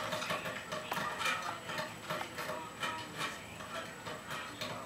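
Ferret dooking: a fast, irregular string of soft clucking clicks as it pesters the cat, a sign of an excited, playful ferret.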